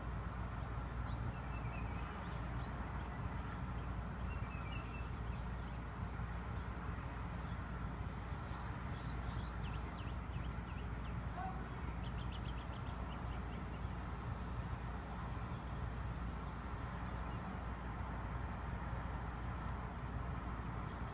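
Outdoor ambience: a steady low background hum with a few faint bird chirps now and then, and a brief faint chirring trill near the middle.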